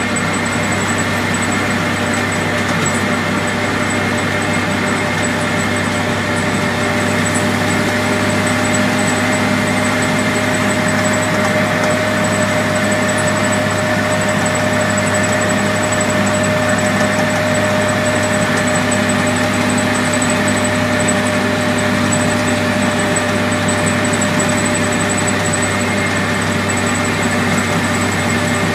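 Dodge WC-54 ambulance's flathead straight-six engine running steadily while driving, heard from inside the cab, with a constant drone mixed with road noise.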